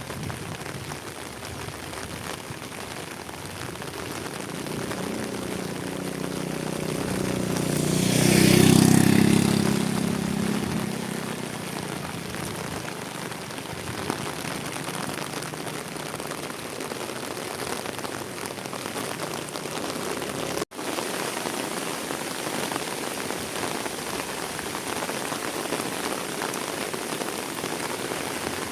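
Steady rain falling, with a motor vehicle passing close by: its engine grows louder to a peak about nine seconds in, then fades away within a couple of seconds. The sound cuts out for an instant about twenty seconds in.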